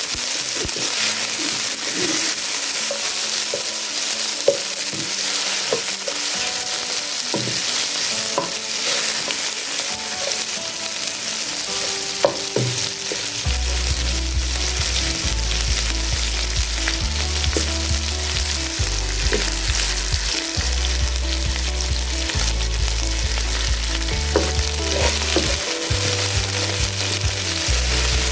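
Chicken pieces with ginger-garlic paste frying in hot mustard oil in a pan, sizzling steadily, with scattered clicks of a spoon stirring against the pan. This is the roasting (bhuna) stage, where the chicken is cooked until its colour changes.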